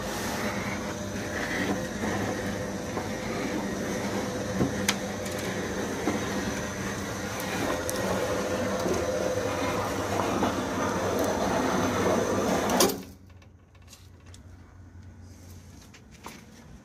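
Rolling shutter door's chain-drive motor running, a steady hum with a thin high whine over it. It cuts off suddenly with a click about thirteen seconds in.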